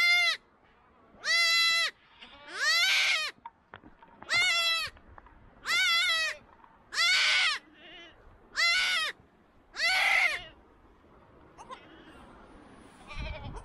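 Newborn goat kid bleating again and again: eight high, wavering calls, about one every second and a half, then a few seconds of faint rustling.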